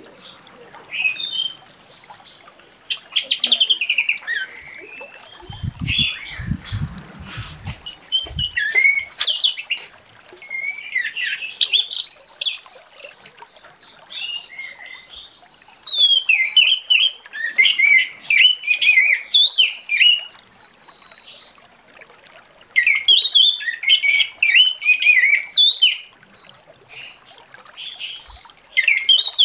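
Orange-headed thrush (anis merah) singing a fast, varied song of high warbled and whistled phrases, broken by a few short pauses.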